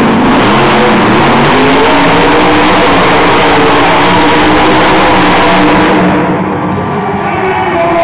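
Monster truck's supercharged V8 running at high revs, very loud and distorted, while the truck spins donuts in the dirt; about six seconds in the revs drop and the engine eases off.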